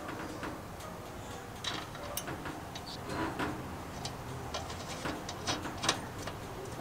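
Small metallic clicks and light scrapes as a steel nut is offered up and spun on by hand onto a bolt through a slotted metal plate and bracket. The clicks are irregular, a few of them sharper, near the middle and towards the end.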